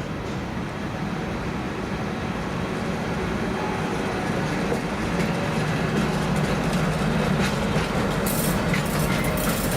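A train approaching and rolling past, its running noise growing louder. Wheels start clicking over rail joints and points near the end, with brief high wheel squeaks.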